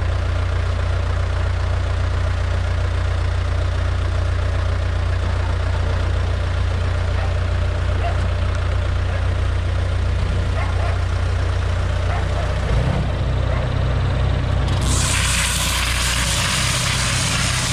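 Tractor diesel engine running steadily while it drives a mounted round-bale wrapper that turns a bale and stretches plastic film around it. The engine note shifts a little near the end, and a loud steady hiss joins it.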